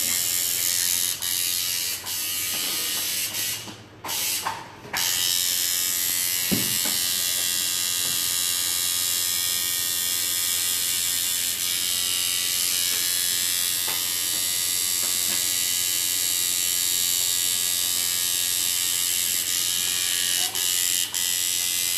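Electric tattoo machine buzzing steadily as it needles ink into skin. It stops briefly about four seconds in and starts again a second later.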